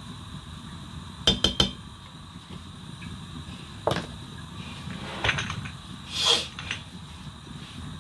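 Kitchen items knocking and clinking while a pot of stew is seasoned on a gas stove: three quick clicks about a second in, a single knock near the middle, then more clinks and a short rattle, over a low steady hum.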